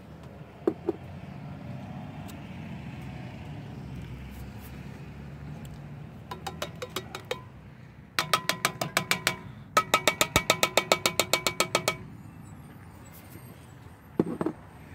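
Metal soup can held upside down over a cast-iron Dutch oven, shaken and tapped to work the condensed cream of chicken soup out: runs of quick ringing metallic clinks, the longest a fast run of about eight a second near the end, with a couple of single knocks before and after.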